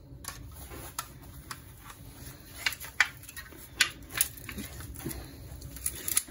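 Aviation tin snips cutting through a thin steel tin: a run of irregular sharp clicks and snips as the blades bite and shear the metal.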